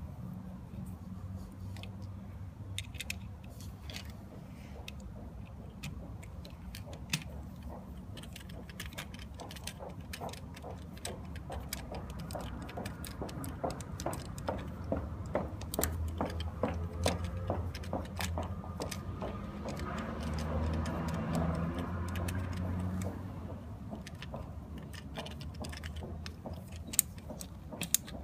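Small metal clicks and clinks of hand tools and parts being handled while fitting a scooter battery. In the middle comes a long run of rapid, evenly spaced ticks, then a louder, busier stretch.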